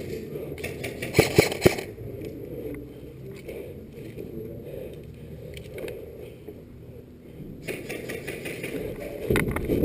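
Three sharp clicks in quick succession about a second in, then low muffled rustling and scraping, the sound of a player moving with gear brushing against the microphone.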